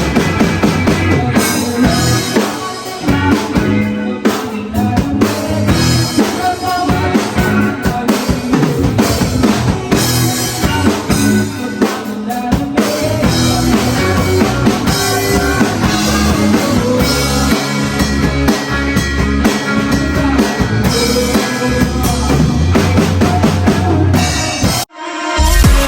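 A band playing, with the drum kit to the fore: kick, snare and rimshot hits under the other instruments. The sound drops out for an instant about a second before the end, then comes back loud.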